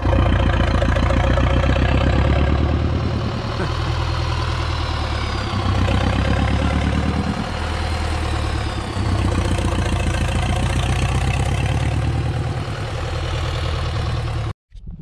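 Oil-well pumpjack's drive engine running steadily with a fast, even low beat. It cuts off suddenly near the end.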